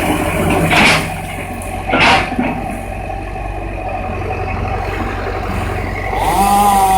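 Excavator engine running steadily on a demolition site, with two short bursts of noise about one and two seconds in. A higher pitched whine comes in near the end.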